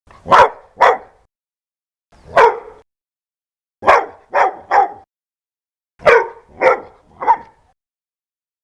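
A dog barking loudly: nine sharp barks in short groups of two, one, three and three, with silence between the groups.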